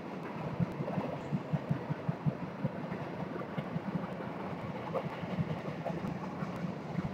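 Empty freight flatcars rolling past on a moving train. The wheels run on the rail with a steady rolling noise, broken by irregular clanks and knocks from the cars.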